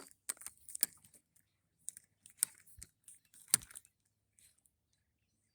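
Scattered short clicks and light rustles at irregular intervals, the loudest right at the start and another about three and a half seconds in.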